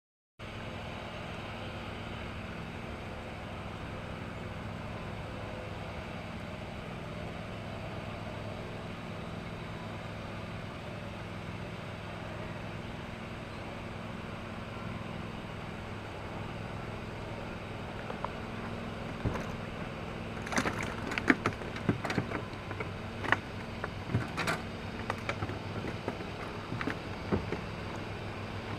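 Small boat motor running steadily with a low hum, with a scatter of sharp knocks and clicks from about two-thirds of the way through.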